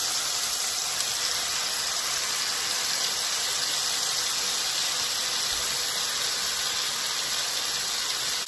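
Oil and melted butter sizzling steadily in a frying pan as diced raw chicken is tipped in, with prawns frying in a second pan.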